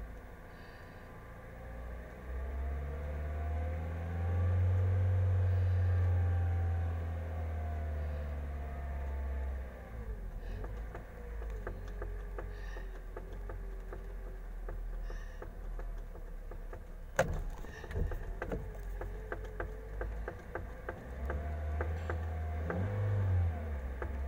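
Car engine running at low revs while driving, heard from inside the cabin; its drone swells and eases as the pitch slowly rises and falls. Partway through, a run of sharp knocks and rattles comes as the car goes over a bumpy stretch of road.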